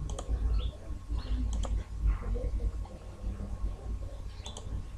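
Computer mouse clicks: a few sharp clicks, twice in quick pairs, over a steady low background rumble.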